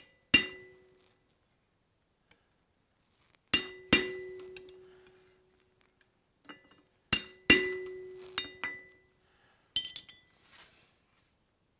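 Hand hammer striking a chisel held on a hot steel wedge on the anvil, cutting ridges across it. Several sharp metallic strikes, mostly in pairs a few seconds apart, each ringing briefly.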